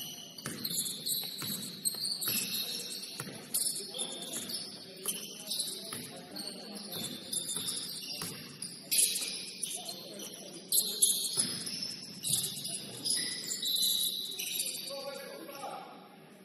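Basketball shoes squeaking on a hardwood court in many short, high-pitched chirps, among the knocks of a bouncing ball.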